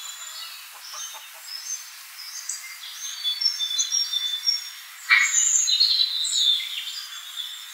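Small birds chirping and singing in short high notes, with a hen's soft clucks in the first second or so; the chirping grows louder and busier about five seconds in.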